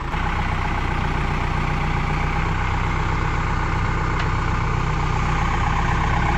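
Backhoe's engine running steadily while it maneuvers a water tank on its forks.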